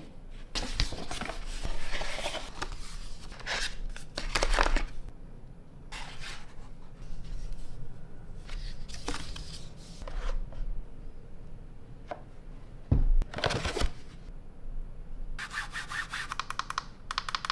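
Packaging being handled and opened: cardboard and wrapping rubbed, slid and torn in short bursts, with a sharp knock about two-thirds of the way through and a fast run of crackles near the end.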